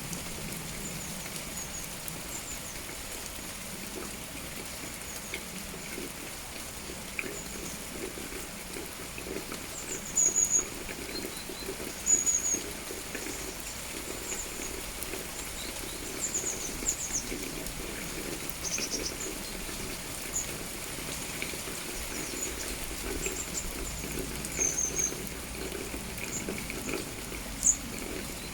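Steady autumn rain falling, with small birds giving short, high chirps throughout. The loudest chirps come about ten and twelve seconds in.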